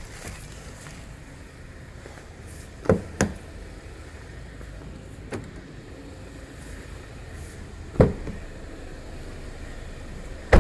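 Hyundai Alcazar SUV doors being opened and shut, heard as short knocks and latch clicks: a close pair about three seconds in, and a firm door thud about eight seconds in. A steady low hum runs underneath.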